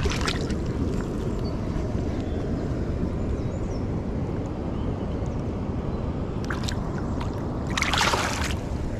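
Steady low rush of river water with wind on the microphone, and a short burst of splashing or sloshing a little before the end.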